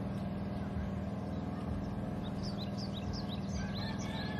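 Steady engine drone at constant speed. Over it, from about halfway through, a bird gives a quick run of short, high chirps.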